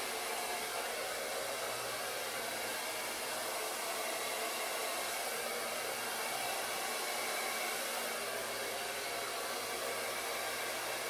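Handheld hair dryer running steadily, its airflow pushing wet acrylic paint across a board in a Dutch pour.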